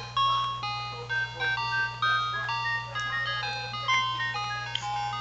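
Electronic baby toy playing a tinkly, chime-like tune, one clear note after another, which stops at the very end. A steady low hum runs underneath.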